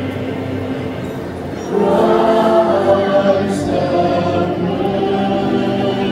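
Choir singing with held notes, growing louder about two seconds in.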